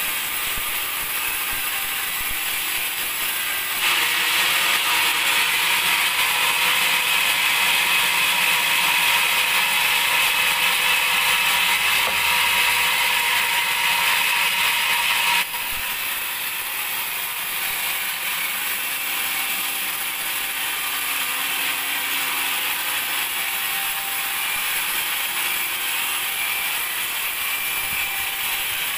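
Band sawmill running. From about four seconds in it turns louder and higher, as when the blade is cutting through a teak log, and about halfway through it drops back abruptly to the lower steady running noise.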